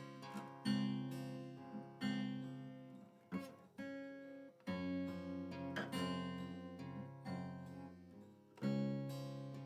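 Acoustic guitar played slowly, one chord strummed about every second and a half and left to ring and fade before the next.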